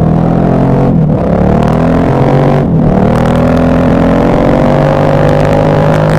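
KTM 1190 Adventure R's LC8 V-twin pulling hard under acceleration, its pitch rising, with two short breaks about one and almost three seconds in where the throttle closes for a gear change before it pulls again.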